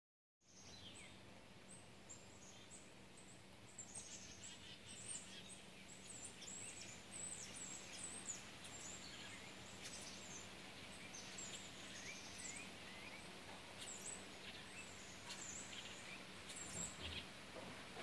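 Black-capped chickadees calling, a busy run of short high chirps and chick-a-dee calls. Faint steady low hum underneath.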